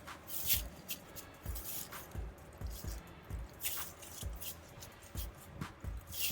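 A spade or garden fork digging into garden soil: dull thuds and short gritty scrapes, coming irregularly.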